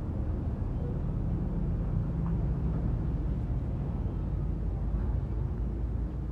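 A vehicle engine running steadily, a low rumble.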